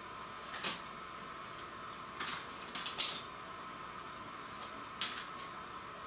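Playing cards and chips handled on a tabletop: scattered short, sharp clicks and taps, a handful over a few seconds, over a faint steady hum.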